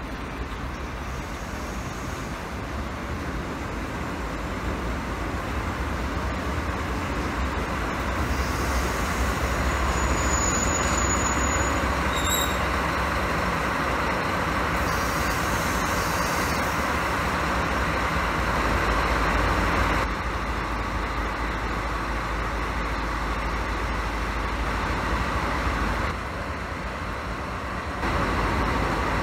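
A JNR Class DD51 twin-engine diesel-hydraulic locomotive runs past at low speed, its engines making a steady deep drone that grows louder as it comes near, hauling a rake of empty rail-carrying flat wagons. The sound changes abruptly twice near the end.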